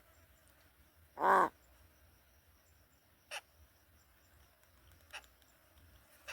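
Large-billed crow calling: one loud, harsh caw about a second in, followed by three short, fainter calls spaced a couple of seconds apart.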